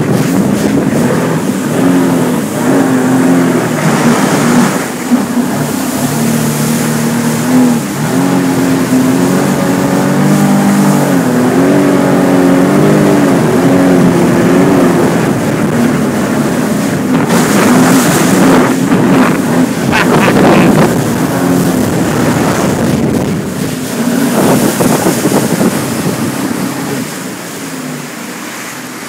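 Sea-Doo RXP-X personal watercraft engine running under way, its pitch rising and falling with the throttle. Bursts of rushing wind on the microphone come through in the middle, and the sound fades away near the end.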